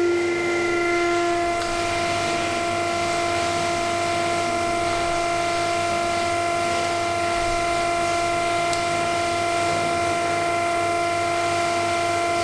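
Electric sausage-filling machine running with a steady whine as it pushes meat into the casing; the tone shifts slightly about a second and a half in.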